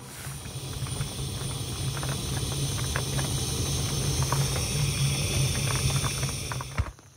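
Handheld gas blowtorch hissing steadily as its flame plays into the firebox of a tent wood stove to light birch briquettes, with a few faint clicks. The hiss cuts off suddenly near the end.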